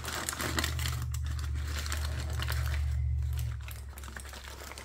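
Aluminium foil being peeled open by hand, crinkling irregularly. A low steady hum runs underneath and stops about three and a half seconds in.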